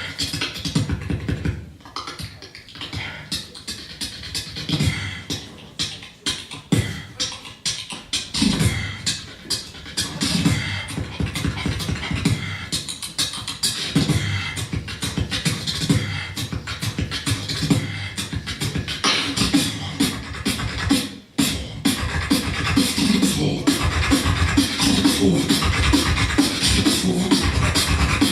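Solo beatboxing: a dense run of mouth-made kick, snare and click sounds over low, sliding vocal bass notes, with a brief break a little past the two-thirds mark and a fuller, steadier bass line after it.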